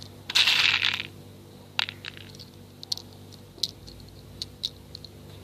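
A BB gun firing a string of shots, each a short sharp snap, about six of them spaced irregularly. A brief rush of noise, like a gust on the microphone, comes about half a second in.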